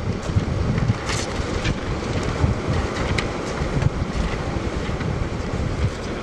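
Strong sea wind rumbling and buffeting on the microphone, over waves washing on the shore, with scattered brief crackling ticks.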